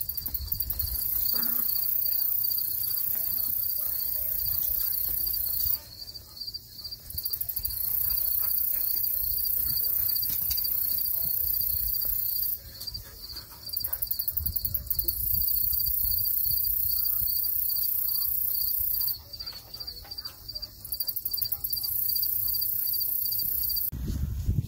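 Crickets chirping in a rapid, steady pulse, with a much higher-pitched insect buzz that runs in spells of several seconds and stops briefly between them; the insect sound cuts off near the end.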